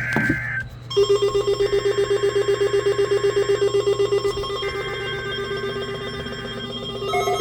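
NOAA Weather Radio warning alarm signal sounding during a weekly test. It is an electronic alarm that starts about a second in and pulses rapidly, about ten beats a second, with a higher steady tone coming and going twice.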